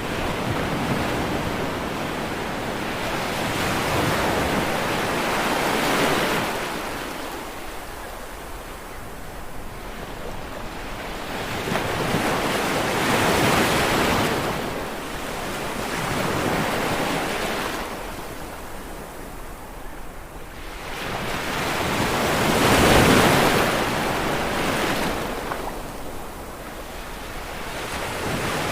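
Sea waves breaking on a shore, a steady wash of surf that swells and falls back in slow surges every several seconds, the loudest wave crashing near the end.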